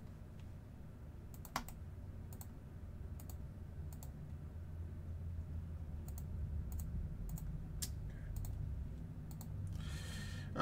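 Scattered clicks of a computer keyboard and mouse, about a dozen spread over several seconds with one louder click near the start, over a low steady hum.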